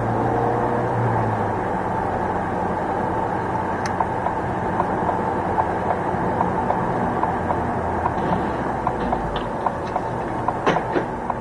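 Car road and engine noise heard from inside the cabin at motorway speed, a steady rushing. From about four seconds in there is a run of light clicks about twice a second, and near the end a few louder knocks.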